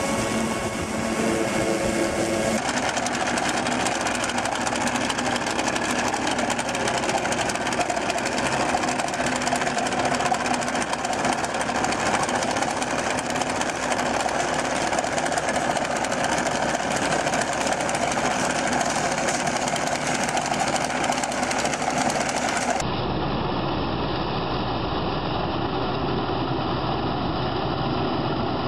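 Farm machinery running with a steady mechanical clatter. The sound changes abruptly twice, about two and a half seconds in and again near the end.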